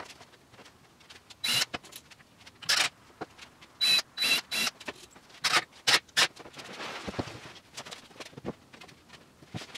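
Plywood cabinet panels being handled on a workbench: a series of short, sharp scrapes and knocks, some with a thin squeak, then a softer rustling stretch.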